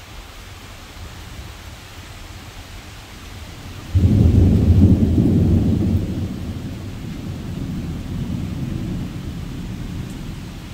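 Steady rain, then about four seconds in a sudden loud clap of thunder that keeps rumbling, fading slowly.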